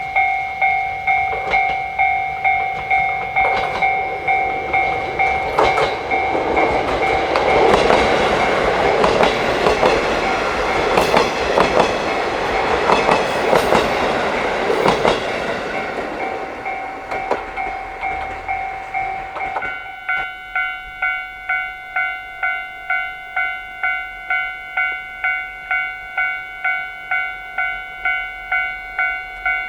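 Japanese level-crossing warning bell ringing in even, repeated strokes while a train of KiHa 40 and KiHa 48 diesel railcars passes, its wheels clattering over the rail joints. The train passing is loudest through the middle and then fades. About two-thirds of the way in, the bell changes to a fuller tone of several notes and keeps ringing.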